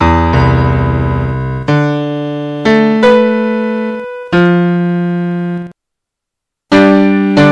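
Background piano music: slow chords struck about once a second, each left to ring and fade, with a pause of about a second near the end.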